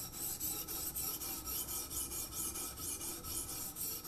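Low-grit sharpening stone on a TSPROF K03 guided sharpener's arm rasping back and forth along the edge of a Bulat steel hunting knife in quick, even strokes, grinding a 20-degree-per-side bevel.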